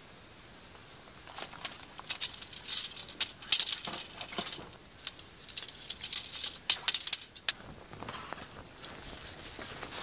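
Camping gear being handled during setup: irregular rustling and light rattling clicks in quick clusters, stopping about three-quarters of the way through.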